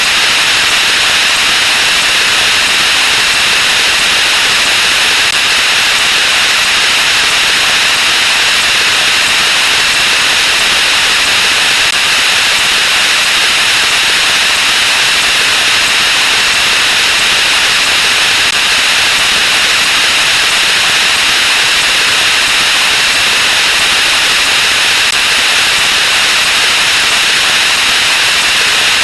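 A loud, steady static-like hiss with no breaks or distinct events, brightest in the upper middle range: a counting track with sound effects sped up 64 times, so that its voices and effects blur into continuous noise.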